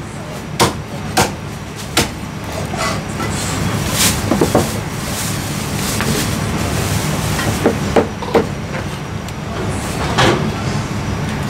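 Chinese cleaver knocking on a thick wooden chopping block as braised goose is sliced, about nine sharp chops at uneven intervals, over a steady low background hum.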